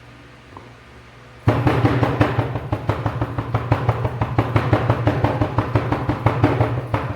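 Dental plaster vibrator switching on about a second and a half in, buzzing steadily with a fast rattle as the dental flask of fresh plaster shakes on it to settle the plaster and drive out air.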